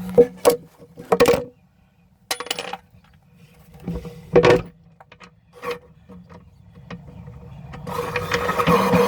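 Short clicks, knocks and rattles of small parts and hand tools being handled, spaced out over several seconds. Music comes in near the end.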